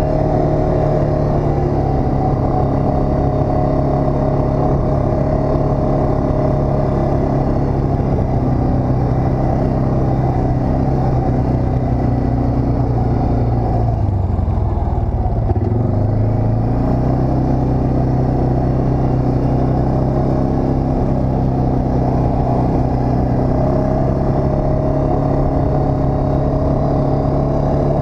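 ATV engine running steadily under way. Its note drops briefly about halfway through, then picks back up to the same steady pitch.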